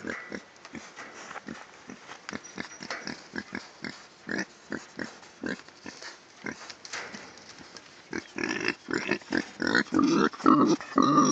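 Young wild boars grunting in a quick series of short sounds, getting louder and longer in the last few seconds.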